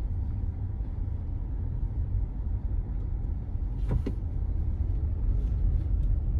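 Car running in slow traffic, heard from inside the cabin as a steady low rumble, with one short click about four seconds in.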